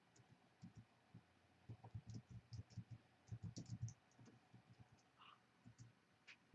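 Faint, irregular clicks and light taps, bunched together in the middle, over near-silent room tone.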